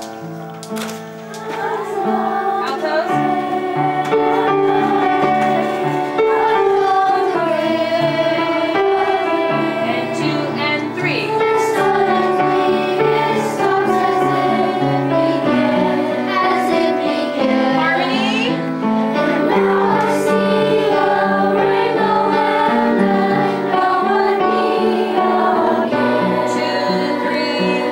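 Children's choir singing with piano accompaniment. The upright piano plays alone briefly before the young voices come in about two seconds in, and the group then sings on over the piano.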